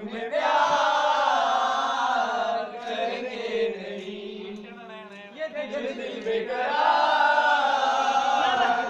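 A group of men singing loudly together in unison, in two long held phrases with a quieter, softer stretch between them.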